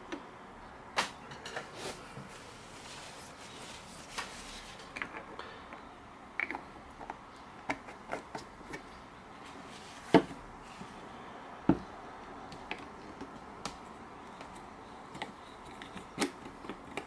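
Scattered small clicks and knocks of handling edge-paint jars and a spring clamp on a bench: a plastic screw cap being turned and jars set down, with two louder knocks a little past halfway.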